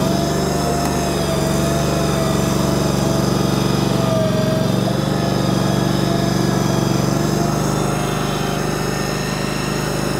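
Small petrol engine of a shed-moving machine running steadily, with a thin wavering whine riding above its hum.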